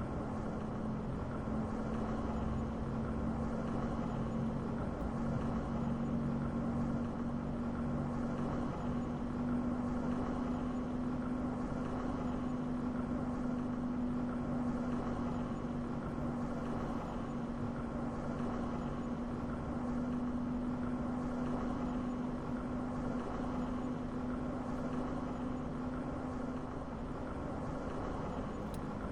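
Car driving steadily on a dirt road: a constant engine drone under tyre and road noise, the engine note holding nearly steady throughout.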